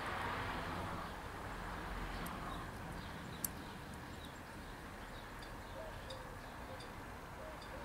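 Quiet outdoor background noise with faint, short bird chirps now and then from about three seconds in, and one sharp click about three and a half seconds in.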